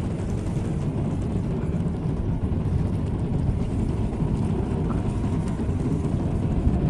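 Steady low rumble of the car ferry Hibiki's engines and exhaust as the ship gets under way close by, with the sound flickering unevenly.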